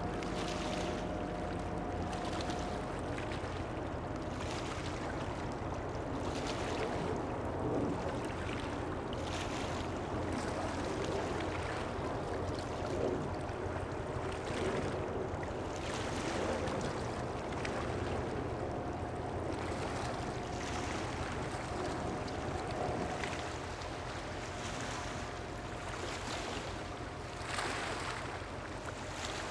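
Large ro-ro container ship going past: a steady low engine hum with a faint droning tone above it, under water washing and splashing in repeated surges every second or two.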